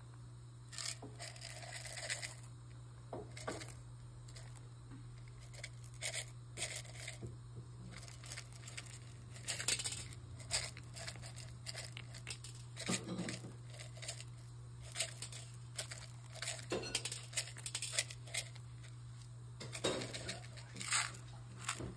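Irregular rustling, crinkling and light clicks from hands handling sprinkles and silicone muffin cups, over a steady low hum.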